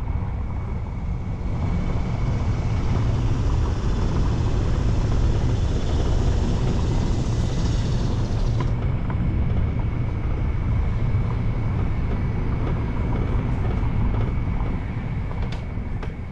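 Car driving slowly over a brick-paved street: a steady low rumble of tyres and road noise with wind on the microphone. A higher hiss drops away about nine seconds in, and a faint steady high tone runs underneath.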